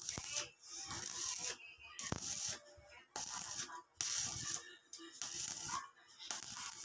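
Repeated scraping strokes on steel, about one a second, as slag is cleaned off a fresh arc weld on square steel tubing.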